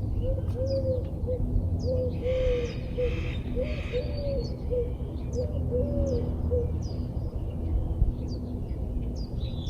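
A dove cooing in repeated three-note phrases, a short note, a longer arched one and another short one, four times over and then stopping. Small birds chirp briefly and high throughout.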